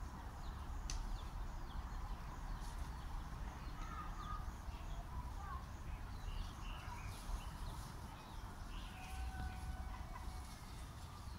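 Distant poultry calling in a few scattered short calls over a steady low rumble.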